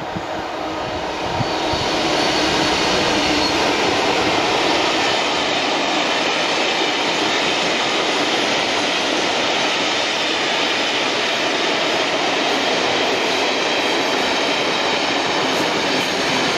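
Class 66 diesel-hauled passenger train passing at speed. The noise builds as the locomotive comes past about two seconds in, then holds steady as the coaches roll by on the rails.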